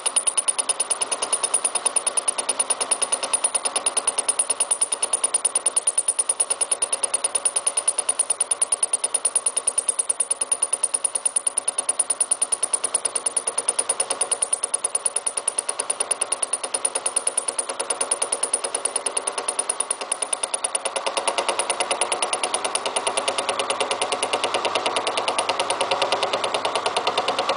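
Milling machine running a single-point fly cutter across the steel of a railroad-track anvil, taking a facing pass. The cutter's interrupted cut gives a fast, even ticking over a steady motor whine, which grows a little louder about two-thirds of the way through.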